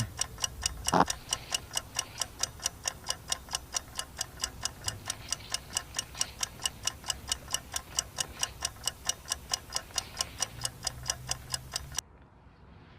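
Steady, rapid mechanical ticking, about four to five clicks a second, cutting off suddenly near the end. There is a brief rising chirp about a second in.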